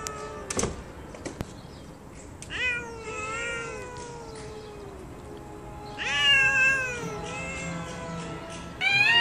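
Cats yowling at each other in a standoff: several drawn-out, wavering yowls that rise and then fall in pitch, the loudest about six seconds in. A couple of sharp clicks come near the start.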